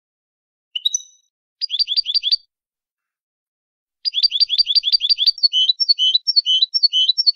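European goldfinch singing a 'canto malagueño' tutoring song, the style used to teach young birds: a single note, then a quick run of repeated chirps, a pause, then a longer run of fast repeated notes that changes into a slower phrase of alternating high notes. The recording is clean, with silence between phrases.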